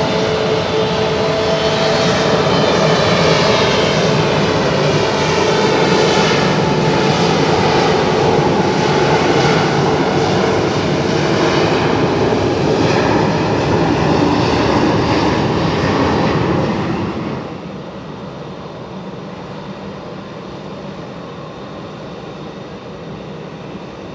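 Embraer 175 jet at takeoff power, its twin GE CF34-8E turbofans running loud, with tones that sweep up and down as it passes. About two-thirds of the way through the sound drops sharply to a quieter steady engine noise.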